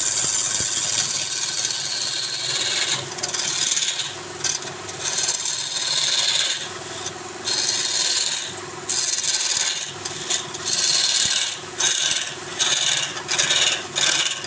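Wood lathe running while a turning tool cuts or scrapes the spinning wood, a hissy scraping in repeated short passes with brief breaks between them, over the steady hum of the lathe.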